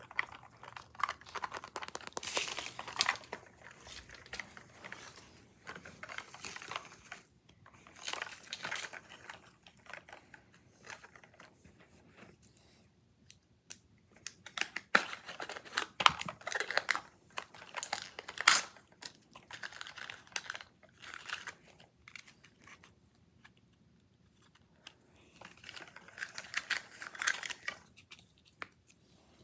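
Paper and thin plastic wrapping of a Mini Brands toy capsule being handled, crinkling and tearing in irregular bursts as it is unwrapped, with a few sharp clicks around the middle and short quiet pauses.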